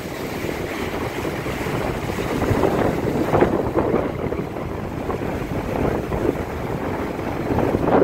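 Rough surf breaking and washing up a beach, mixed with strong gusty wind buffeting the microphone. It is a dense, rumbling rush that surges louder a few times, most strongly about three and a half seconds in and again near the end.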